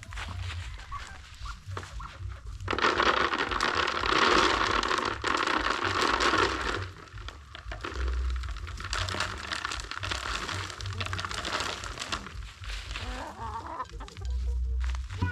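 Chickens clucking. A loud rushing, rustling noise starts about three seconds in and stops after about four seconds.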